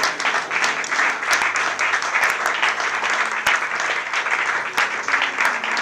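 An audience applauding: many people clapping together, dense and steady throughout.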